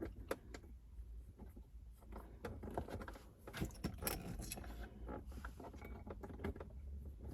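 Faint, irregular small clicks and light rattles of small screws being handled and started by hand into the plastic armrest lid.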